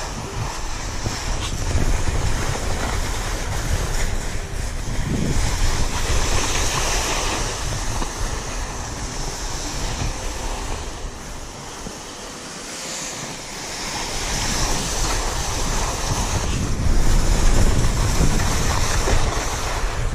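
Skis sliding and scraping over spring corn snow, a hiss that swells and eases several times, with wind buffeting the microphone in a steady low rumble.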